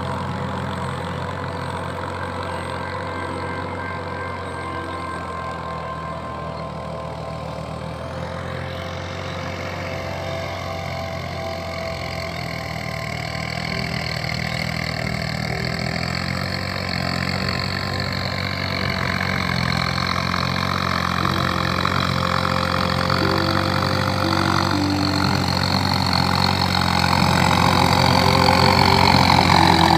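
Farm tractor's diesel engine running steadily while pulling a plow through a flooded paddy field. It gets louder over the second half as the tractor comes closer.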